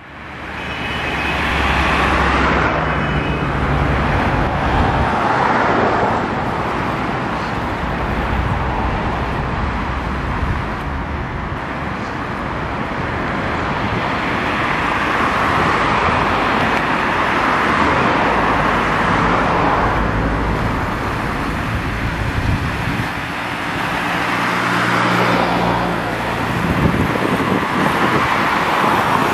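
City street traffic with a diesel city bus, a Caio Mondego II on a Scania chassis, running close by and pulling up. Its engine note rises and falls several times as it moves off and slows.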